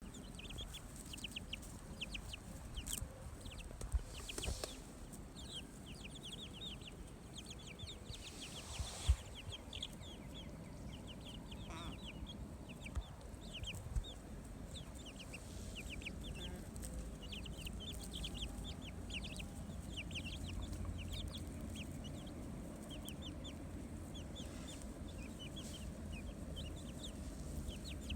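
Chickens calling: a steady stream of short, high, falling chirps throughout, with a few sharp knocks scattered among them.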